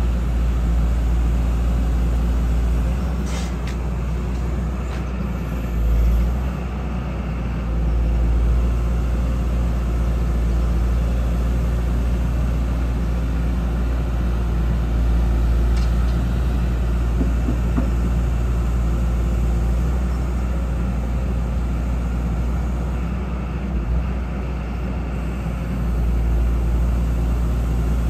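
Hyundai R170W-7A wheeled excavator's diesel engine running steadily as the boom, arm and bucket are worked. The engine note shifts a few times as the hydraulics take load.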